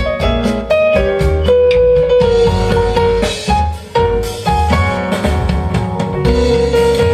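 Recorded music with a drum kit playing through JBL 240Ti three-way loudspeakers driven by a Lite Audio A28 tube preamplifier and TS Audio power amplifiers, heard in the room.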